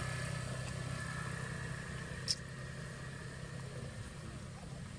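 Motorbike engine running with a steady hum that slowly fades away, and a single sharp click about two seconds in.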